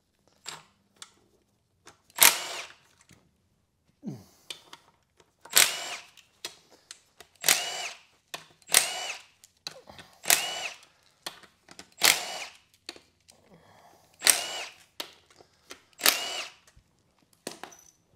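A cordless power tool spins out the bolts holding a CVT transmission's oil pump. It makes about eight short whirring bursts, each a brief whine that rises and falls, with light clicks between them.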